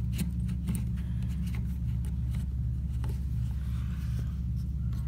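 A steady low hum that throbs about four times a second, with a few faint clicks of plastic toilet parts being handled and fitted by hand.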